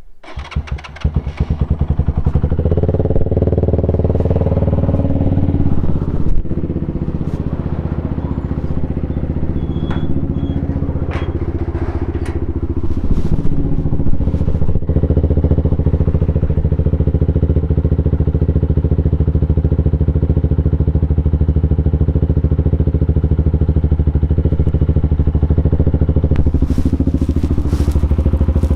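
Keeway RKF 125's single-cylinder four-stroke engine running at low revs through a GPR Deeptone exhaust with the dB killer removed. It picks up about a second in and holds a steady note, with a few small shifts in pitch.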